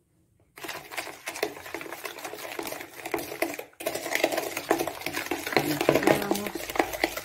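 A metal spoon beats egg and sugar in a bowl: a fast, steady run of clicks and scrapes against the bowl. It starts about half a second in, breaks off briefly a little past halfway, then goes on louder.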